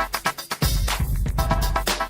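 Background electronic music with a steady, driving beat and heavy bass.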